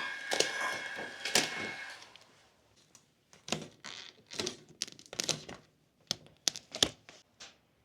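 A steady whine of several tones fades out over the first two seconds. It is followed by a run of irregular sharp clicks and knocks, like parts or packaging being handled.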